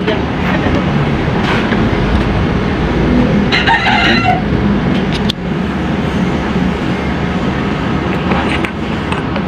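A rooster crows once, about three and a half seconds in, over a steady low rumble.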